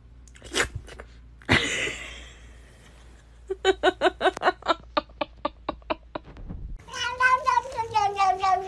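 Domestic cats vocalising: a grey cat gives a rapid run of short chirps, about six a second, then a tabby cat lets out a long, drawn-out meow that slowly falls in pitch. A sharp noisy burst comes about a second and a half in.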